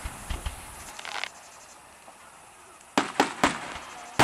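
Aerial fireworks shells bursting: a run of small sharp pops in the first second, then three loud bangs in quick succession about three seconds in, and another loud bang right at the end.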